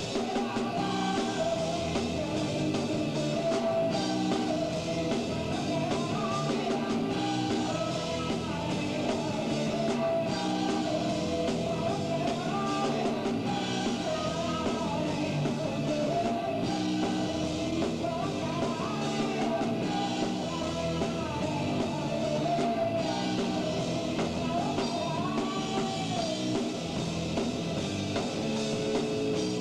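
Rock band playing live: electric guitar and drum kit with a lead vocalist singing over them.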